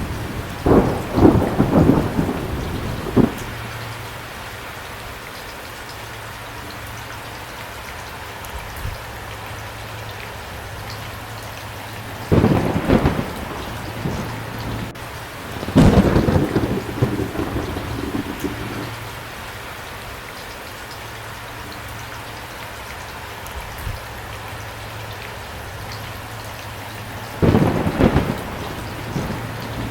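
Thunderstorm: steady rain hissing, with rolls of thunder rumbling at the start, twice in the middle and again near the end.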